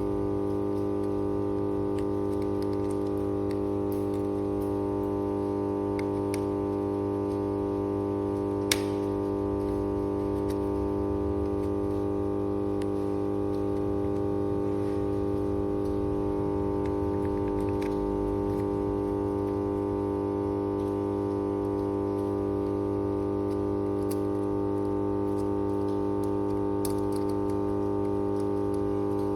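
Steady electrical hum of a power transformer, a layered drone of mains-frequency overtones, with one sharp click about nine seconds in.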